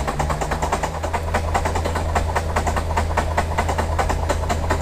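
Starter motor cranking a Cessna 172's Continental engine with the spark plugs pulled, turning it over at a rapid, even pace without firing. It is priming the oil system to build oil pressure.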